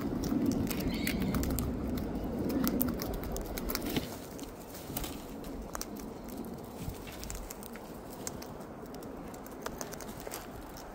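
Wild cockatoos feeding close by: scattered small clicks and crunches of beaks on seed. A low muffled noise is loudest in the first four seconds, then it quietens.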